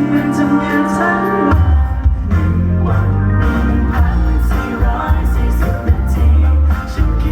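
Live band playing a Thai pop ballad with singing; heavy bass and drums come in about a second and a half in.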